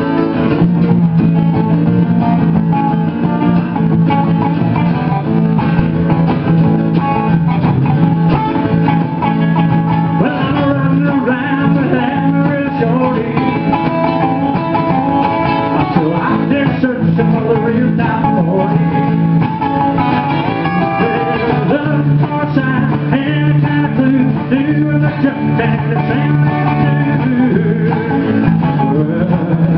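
Live country/rockabilly music led by an amplified acoustic-electric guitar, played steadily through a club PA.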